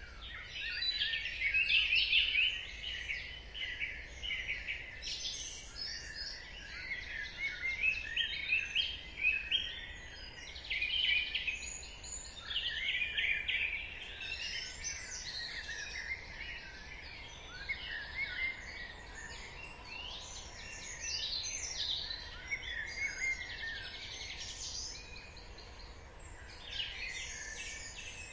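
Dawn chorus: many songbirds singing at once, overlapping phrases, trills and chirps, over a faint low background hum.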